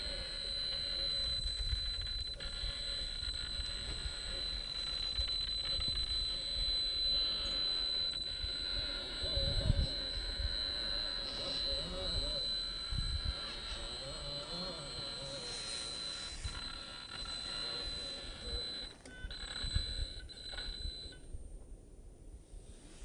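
Steady high-pitched whine from a 2200kv brushless motor and its speed controller as an RC rock crawler creeps up a boulder at low throttle. Low knocks come from the truck working over the rock, the loudest about ten seconds in. The whine cuts out a couple of seconds before the end.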